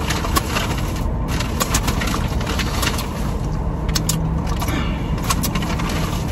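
Scattered small clicks and crackles, like a plastic food container being handled and pressed shut, over the steady low hum of a car's interior with the engine running.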